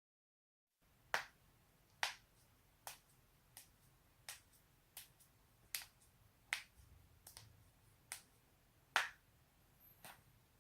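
A person's neck and back joints cracking: a run of about a dozen sharp pops, one roughly every three-quarters of a second, starting about a second in.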